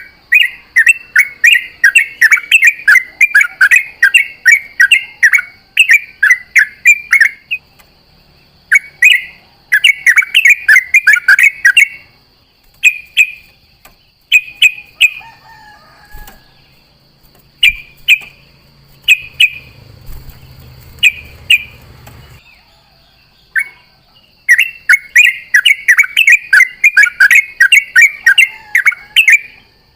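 Yellow-vented bulbul singing a rapid, bubbly chattering song in long runs of notes, broken in the middle by a spell of shorter separate phrases. A faint steady high whine runs underneath.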